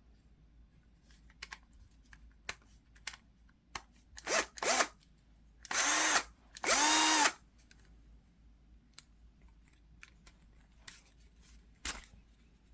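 Cordless drill triggered in short bursts: two quick blips, then two longer runs of about a second each, the motor spinning up each time. Light handling clicks come between them.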